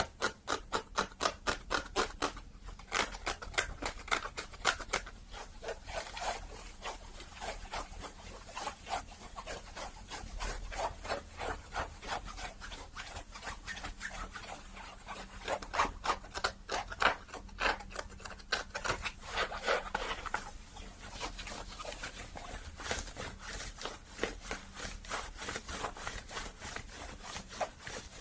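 Close-up ASMR scratching and rubbing on a hat's fabric, in quick repeated strokes, several a second.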